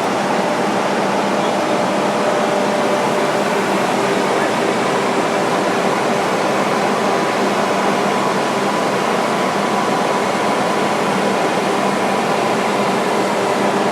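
A large smoke-extraction ventilation system running at full power, drawing air through the building to spin up an artificial tornado. It gives a loud, steady rush of air with a few faint steady hum tones underneath.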